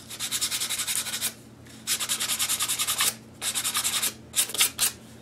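Sandpaper rubbed rapidly back and forth by hand over a 3D-printed plastic ear cap coated in epoxy, smoothing the cured coat. The quick strokes come in three runs with short pauses between, then a few last strokes near the end.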